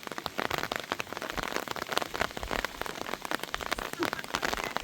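Heavy rain falling, with a dense, irregular stream of sharp drop hits close by.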